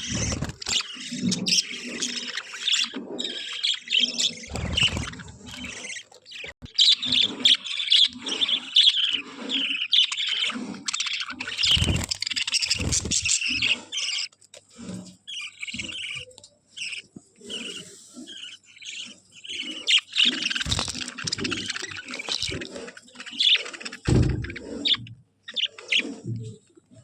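Budgerigars chattering and warbling with quick, irregular chirps, with a few short knocks in between.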